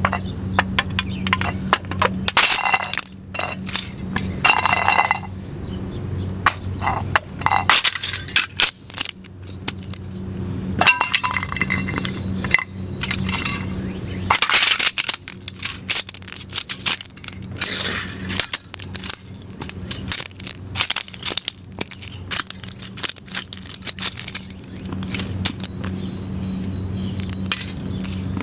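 Plastic cups crunching and cracking under stomping Texas Steer work shoes, in repeated irregular clusters of sharp crackles. A steady low hum runs underneath.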